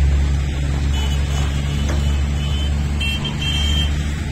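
Busy road traffic: a steady low rumble of engines, with a few short, high horn beeps about a second in and again near the end.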